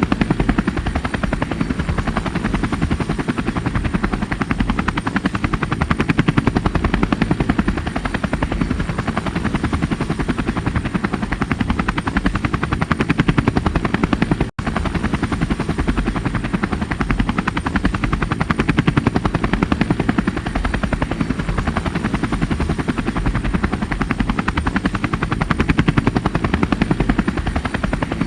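Helicopter rotor noise, a rapid, steady chopping that holds at a constant level, with one momentary break about halfway through.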